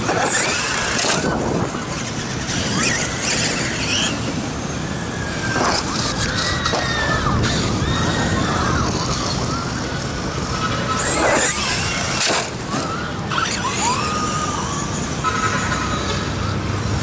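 Electric motors of 1/10-scale RC monster trucks such as the Traxxas E-Revo whining, the pitch rising and falling over and over as the trucks accelerate and slow. Two short rushes of noise, one near the start and one about eleven seconds in.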